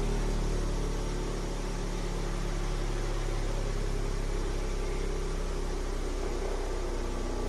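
WEN 8-inch bench grinder running, a steady motor hum with a low buzz from the spinning grinding wheels. The wheels are still slightly out of true, which leaves some vibration.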